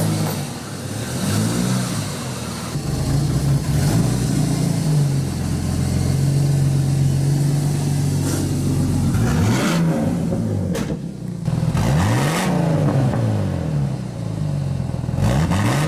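A vehicle engine running steadily, revved up and back down several times.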